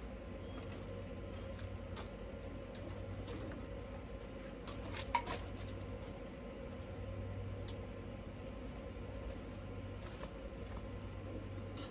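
A cooling mason jar's canning lid pops down once, a sharp click about five seconds in: the sign that the jar has sealed. Faint clicks and taps come and go over a low steady hum.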